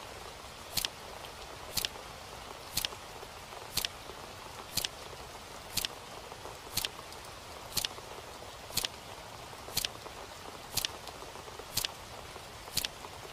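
A clock ticking steadily, one sharp tick each second, over a steady hiss.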